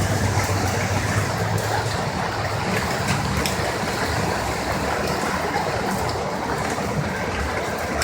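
A motor vehicle driving through flooded street water: a steady rush of water and tyre noise, with a low engine hum that fades over the first few seconds.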